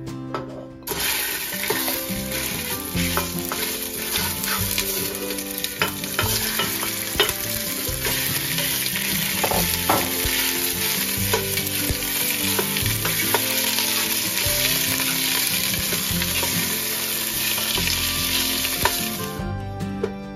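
Italian honey-garlic sausages frying in hot oil in a stainless steel pot: a loud, steady sizzle that starts about a second in as they go into the oil, with small scrapes and clicks of a wooden spoon stirring them. The sizzle stops suddenly near the end.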